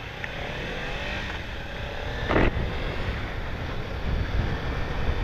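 Kawasaki Ninja 300 parallel-twin engine running under way, with a haze of wind noise, growing louder through the stretch; a brief sharp sound about two and a half seconds in.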